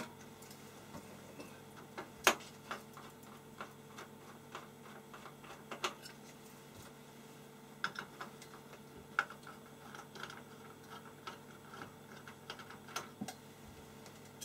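Scattered small clicks and taps of a metal screening-can cover being worked loose and lifted off a circuit-board module, the loudest about two seconds in, over a faint steady hum.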